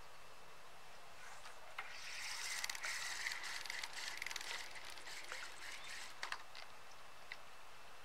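Spinning fishing reel being cranked: a quiet whirring with rapid fine clicks that starts about a second in and stops around six seconds in.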